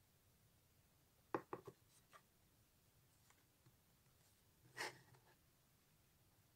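Small cardboard jewellery boxes being handled and set down on a wooden desk: a quick cluster of light taps about a second and a half in, one more tap shortly after, and a short rub of cardboard near the end.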